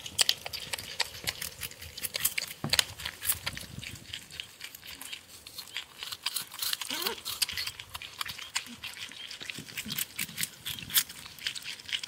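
Porcupine eating, with quick crunchy chewing clicks throughout and soft mumbling vocal noises as it eats, the clearest a short rising-then-falling call about seven seconds in.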